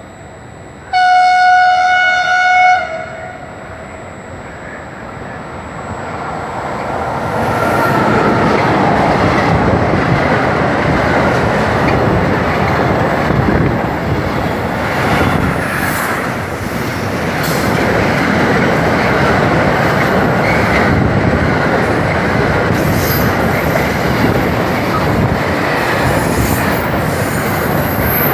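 An FS class E652 electric locomotive at the head of a container freight train sounds its horn once, for about two seconds. The train then passes close by, its wagons' wheels rumbling and clacking over the rails, louder from about seven seconds in, with a thin high squeal near the end.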